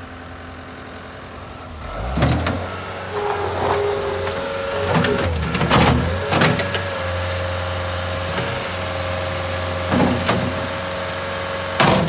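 Caterpillar 236B skid steer loader's diesel engine running and throttling up about two seconds in, with a steady hydraulic whine as the loader arms are worked. Several sharp clunks from the machine come through at intervals.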